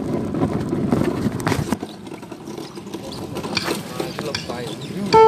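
Street noise with rustling and bumping from the phone as it is carried and swung about, with indistinct voices. Right at the end, a backing track starts loudly with a held keyboard chord.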